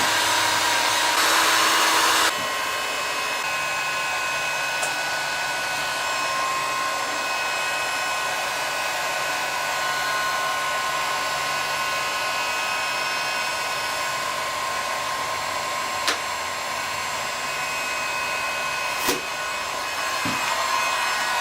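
Handheld heat gun running steadily: an even blowing hiss with a constant whine, louder for about the first two seconds and then settling. A couple of faint clicks come later on.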